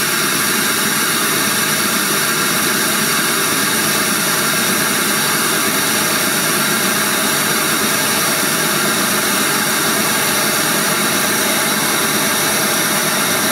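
Zeus MR-6.1 car-audio midrange speaker playing a steady hiss of test noise, reading about 69 dB on the sound-level meter.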